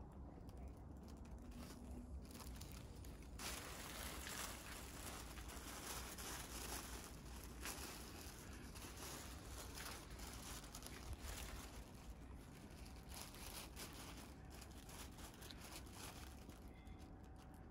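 Sky lantern's tissue paper crinkling and rustling as it is held open, filling with hot air from its lit fuel cell. A faint steady hiss with small crackles comes in about three seconds in.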